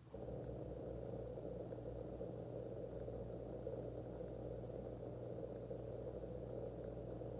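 A steady mechanical hum with a low whir that switches on abruptly and holds level, like a room appliance running.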